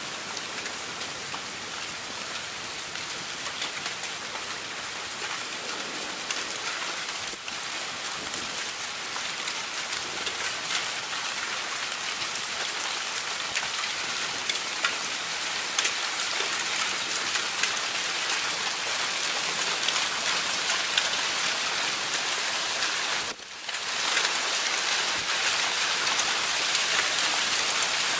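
Heavy rain pouring down during a severe thunderstorm: a dense, steady hiss of rain on roofs and pavement that grows gradually louder, with a brief dip about 23 seconds in.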